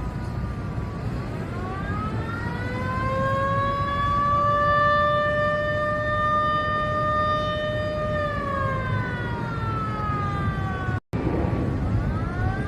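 Civil defense warning siren wailing: its pitch rises, holds a steady tone for several seconds, then slides down and winds up again, over a steady low background noise. The sound cuts out for a split second about three-quarters through.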